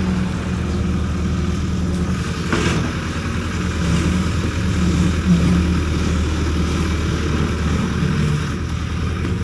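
Hitachi hydraulic excavator's diesel engine running steadily under working load while the machine digs and swings mud. A single clunk comes about two and a half seconds in.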